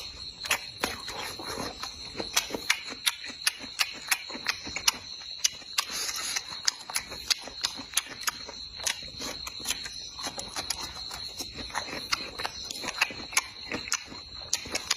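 A person eating rice mixed with stir-fried pickled chilies and minced pork: chewing and lip-smacking, with many sharp irregular clicks. Under it runs a steady high-pitched whine.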